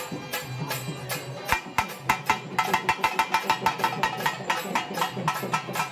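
Devotional bhajan drumming on double-headed barrel drums: a fast, steady beat of sharp strokes that picks up and grows louder after about a second and a half.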